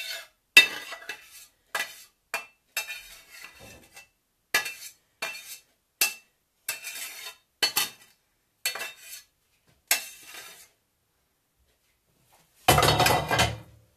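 A utensil scraping tomato sauce out of a stainless-steel frying pan, in a string of short metal scrapes and clinks about once a second. Near the end there is a louder clatter lasting about a second.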